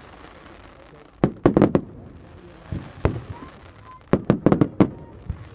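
Fireworks going off: sharp bangs in quick clusters about a second in and again around four seconds in, with single bangs between.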